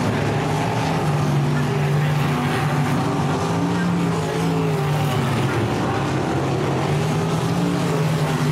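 Several dirt-track race car engines running together, their pitch rising and falling.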